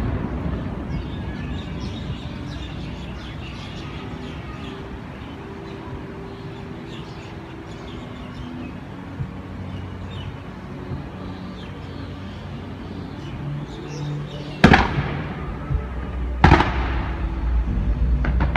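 Fireworks display in a lull, with faint music and background noise, then two loud firework bangs about two seconds apart near the end. A run of quick crackles follows as comets are fired.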